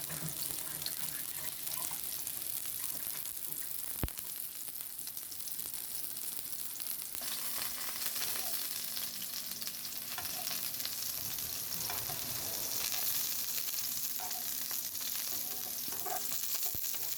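Seasoned salmon fillet searing in hot oil in a pan on medium-high heat: a steady sizzle that grows a little brighter about seven seconds in. A single sharp tap comes about four seconds in.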